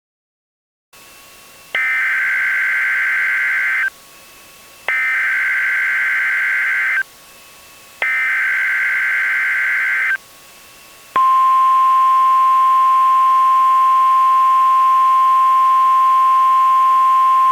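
Emergency alert data and warning tones: three harsh two-second bursts of SAME header data, about a second apart, then, about eleven seconds in, a long steady single-pitched alert tone of the kind NOAA Weather Radio sends at 1050 Hz.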